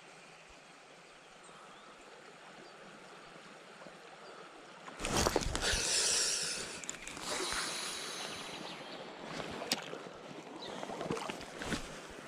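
Faint steady flow of river water. About five seconds in, a sudden loud rush of rustling and movement noise on the body-worn microphone as the spinning rod is swung out for a cast, fading over a few seconds, with a few sharp clicks after it.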